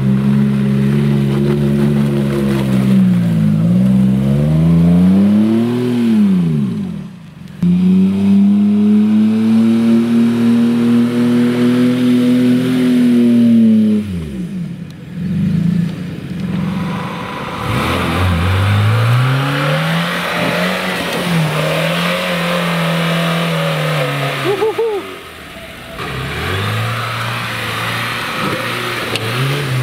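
Jeep Wrangler Rubicon's 3.8-litre V6 revving up and falling back again and again as it drives through deep mud. The engine note breaks off briefly several times, and near the end a Lada Niva's engine runs as it comes down a muddy rutted track.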